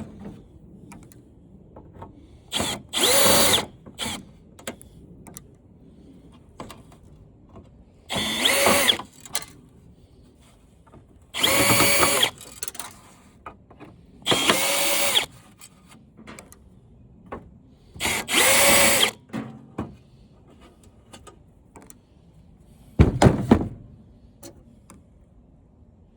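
Power drill used as a screw gun, whirring in several short bursts of about a second each as it backs screws out of a flat-screen TV's frame. Near the end there is a low, heavy thud.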